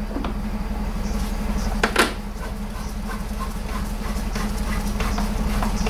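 Hand screwdriver driving a Torx screw into a car's rear light cluster: a click, a sharper click about two seconds in, then soft small ticks about twice a second as the screw is turned. A steady low hum sits underneath.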